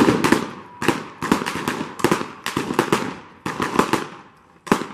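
Blank gunfire in a reenacted gunfight: a rapid, uneven volley of a dozen or so shots, each with a short ringing tail. There is a brief lull near the end before another shot.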